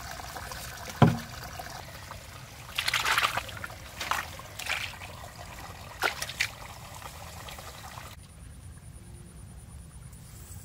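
Water trickling under hands digging in wet mud and sand: a sharp thump about a second in, then a few short, splashy scoops over the next several seconds.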